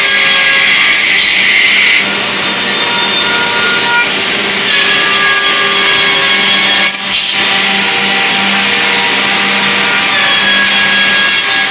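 Edge-banding machine running: a steady, loud hiss with several motor tones held level, and a short knock about seven seconds in.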